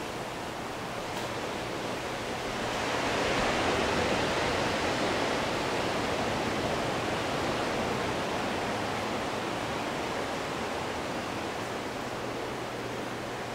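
Steady rushing wash of ocean surf breaking on the shore, swelling a little louder a few seconds in and then easing.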